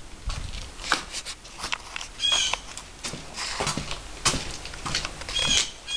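Short high-pitched animal calls, repeated a few seconds apart, among scattered sharp clicks and rustling.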